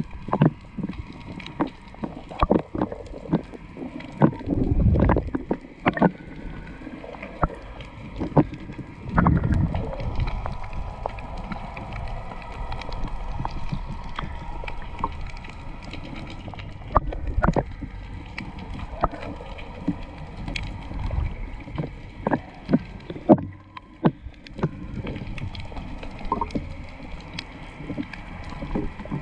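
Underwater sound through a camera housing: a low rumble of moving water with scattered clicks and knocks and occasional heavier surges.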